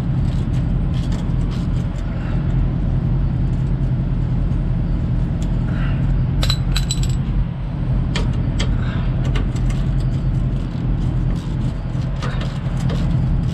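Metal hand tools clinking and tapping as a mud flap is fitted to a semi truck, with a ringing metallic clink about six and a half seconds in. A steady low engine idle hums underneath.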